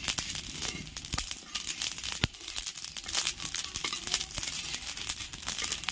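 Mustard and coriander seeds crackling and popping as they dry-roast on a hot iron tawa, with a metal spatula scraping them around the griddle. It is a dense, irregular run of small clicks, with one sharper pop a little past two seconds in.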